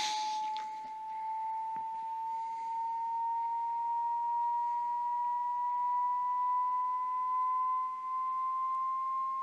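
A steady electronic pure tone, like a test-tone generator, held without a break and slowly gliding upward in pitch. A short rustling burst comes at the very start.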